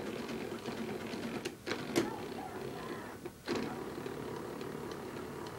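Hospital bed's motor running as the bed is raised or lowered. It stops briefly a little past three seconds and starts again, with a sharp click about two seconds in.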